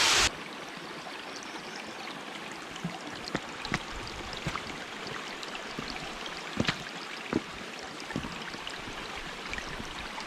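A loud rush of falling water cuts off suddenly a moment in, leaving a softer, steady babble of a stream over rocks with scattered small drips and splashes.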